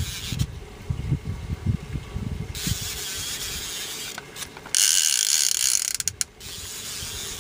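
Fishing reel clicking and ratcheting as a hooked fish is fought. About five seconds in comes a loud, high buzz lasting a second and a half, the drag giving line as the fish pulls.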